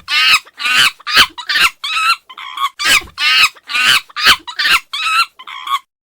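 Monkey giving a rapid series of short, wavering chattering calls, about two a second, stopping shortly before the end.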